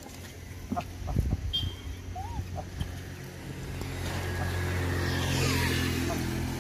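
A motor vehicle passing on the road: a low engine hum with tyre noise that swells to its loudest about five seconds in and then eases off. A few light clicks and a couple of short, high squeaks are heard over it.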